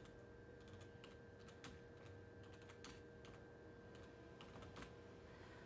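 Faint computer keyboard typing: a run of uneven, separate key clicks as a short line of text is typed.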